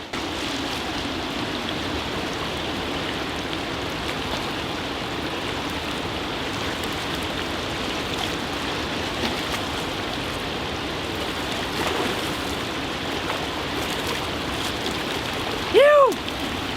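Steady rushing of flowing water. Near the end there is one brief pitched call that rises and falls.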